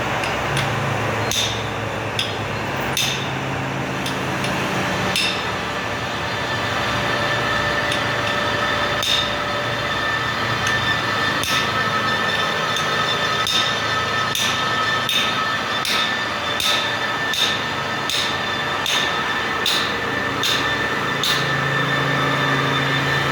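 Metal lathe running with a steady machine hum and faint whine, with sharp metallic knocks: a few scattered at first, then repeating evenly about every 0.7 seconds through the middle of the stretch.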